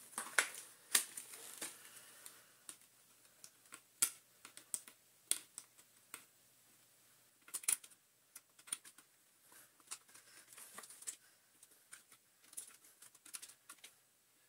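Irregular small clicks and taps of plastic vacuum-cleaner parts and wiring being handled and pushed back into place during reassembly of a Dyson DC40, the sharpest clicks about one, four and seven and a half seconds in.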